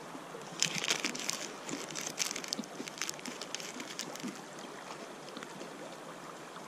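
Coffee Crisp chocolate bar wrapper crinkling as it is peeled open: a busy run of sharp crackles over the first few seconds, then fainter scattered rustles.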